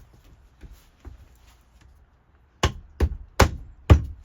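A laminate vinyl floor plank being knocked into place. There are a couple of faint taps, then from about two and a half seconds in a run of four sharp, loud knocks in quick succession.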